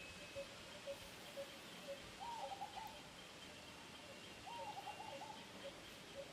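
Birds calling in the background: a short low note repeated steadily about twice a second, joined twice by a higher, rolling call about half a second long.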